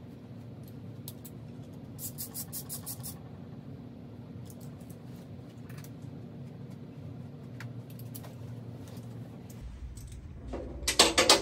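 Metal hand tools clicking and clinking at an engine block over a steady shop hum. About two seconds in there is a quick run of even, ratchet-like clicks. A louder burst of rattling metal clicks comes near the end.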